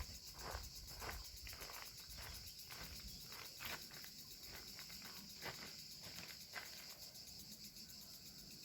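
Faint, steady high-pitched chirring of crickets, with soft footsteps every half second or so, fading toward the end.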